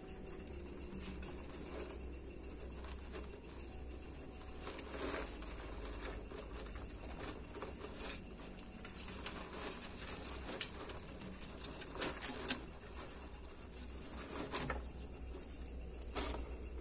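Young monitor lizard chewing and swallowing a mouse: scattered soft clicks and crunches from its jaws, a few sharper ones about halfway through. A steady low hum and a faint high whine run underneath.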